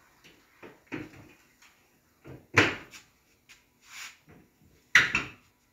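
Metal lid of a steel drum smoker being set on the barrel and worked into place: several metal clunks and a short scrape, the loudest knocks about halfway through and again near the end.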